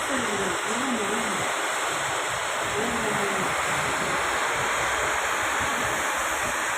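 Heavy rain falling, a steady hiss. Faint voices are heard in the first second and a half and again about three seconds in.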